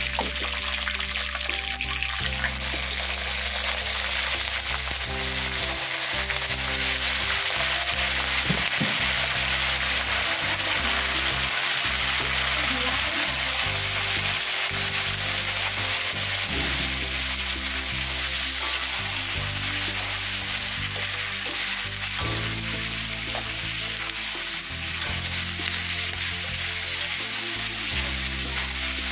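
Frogs frying in hot oil in a steel wok, with a continuous sizzle and a metal spatula scraping and stirring. The sizzle grows brighter about five seconds in.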